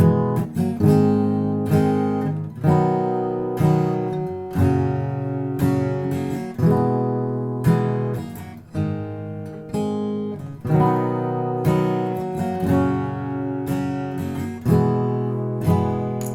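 Background music: acoustic guitar strummed in a steady rhythm, about one strum a second.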